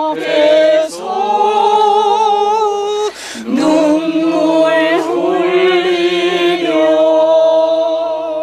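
Unaccompanied singing: voices holding long notes with vibrato, in several phrases separated by short breaths.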